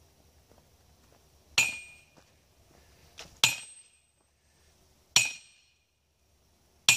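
Sledgehammer driving a metal greenhouse ground post into the ground: four heavy blows, one about every second and three quarters, each a sharp clang with a short ringing metallic tail.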